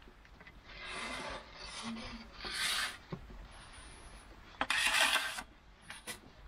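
Wooden peel scraping and sliding over the stone floor of a wood-fired oven in several short strokes as a pide is pushed in and the empty peel pulled back out, the loudest scrape about five seconds in.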